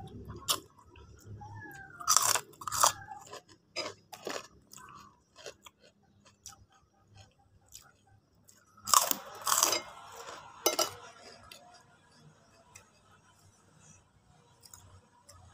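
Eating sounds: chewing and slurping noodles, then loud crackling crunches of teeth biting into a krupuk cracker about nine seconds in and again a second or so later.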